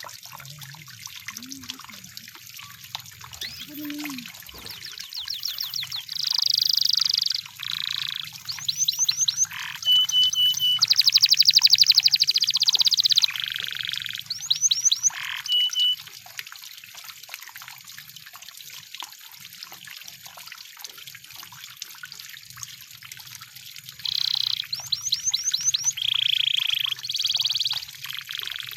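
Canary singing in bursts of rapid trills and rolled phrases, some notes repeated very fast and one note held steady, with a quieter pause in the middle. A faint low hum sits underneath.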